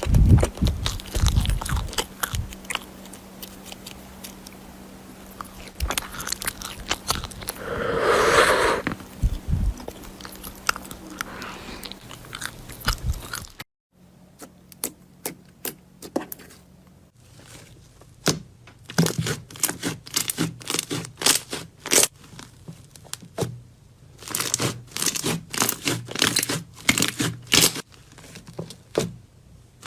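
Slime being squeezed and pressed by hand, making crunchy crackling clicks and squishes. It breaks off into a moment of silence about fourteen seconds in, and after that come sharper, denser crackles.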